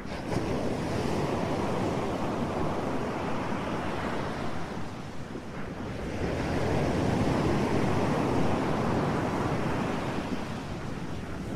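Ocean surf: a steady rush of waves that swells and eases in slow surges, easing about halfway through and building again.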